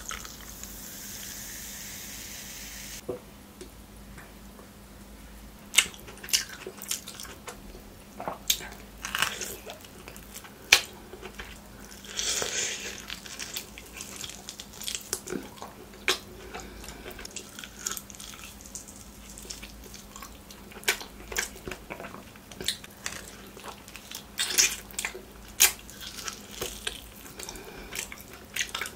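A fizzy soft drink (Sprite) pours from a plastic bottle into a metal tumbler for about three seconds. Then come close-up eating sounds: biting and chewing mutton meat off the bone, with many short sharp clicks and smacks.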